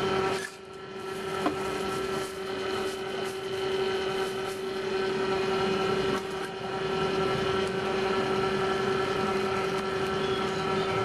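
Steady hum of a running motor at one constant pitch, dipping briefly about half a second in, with a small click about a second and a half in.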